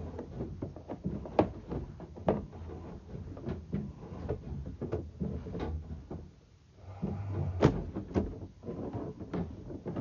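Sewer inspection camera's push cable being pulled back through the line, rattling and knocking in irregular clicks over a steady low hum, with a brief lull a little past the middle.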